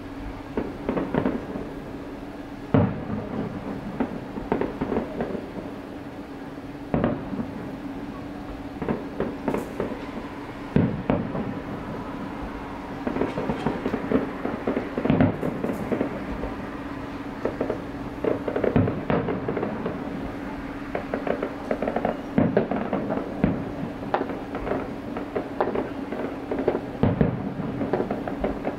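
Distant fireworks display: aerial shells bursting with a loud boom roughly every four seconds, seven in all, with dense crackling and popping between them.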